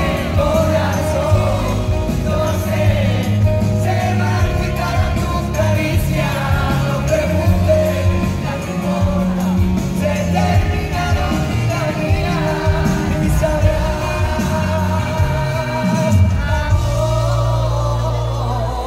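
Live pop band playing, recorded from among the audience: a male lead voice singing over drums, electric guitar, bass and keyboards.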